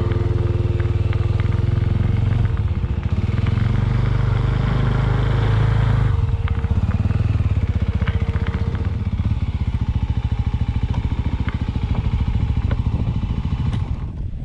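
Small Suzuki motorcycle engine running at low speed with a steady low chugging, ridden slowly over a sandy track, with scattered light clicks and rattles.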